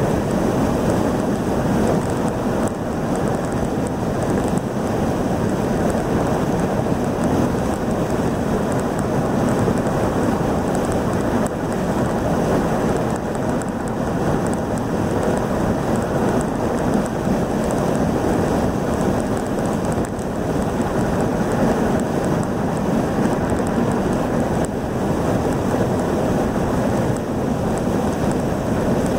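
Steady rushing road and wind noise heard inside a car cruising at highway speed, with tyre roar and wind blending into one even noise.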